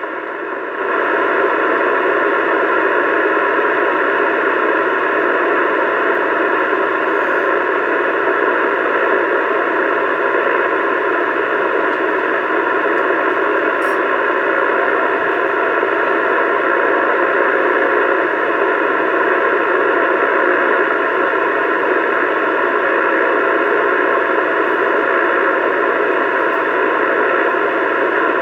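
CB radio speaker putting out a steady hiss of static between transmissions, confined to the narrow voice band of the radio's audio.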